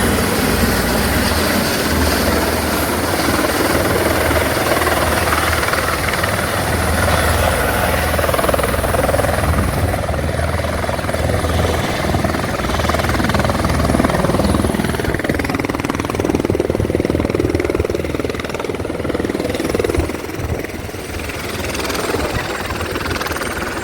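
Helicopter running up close: a dense, loud rotor and engine noise with a throbbing low beat and a thin, steady high whine, easing slightly about twenty seconds in.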